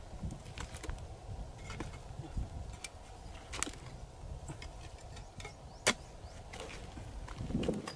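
A wooden stick knocking and prying into dry, cracked mud as clods are broken up, in scattered sharp knocks and scrapes, the sharpest about six seconds in.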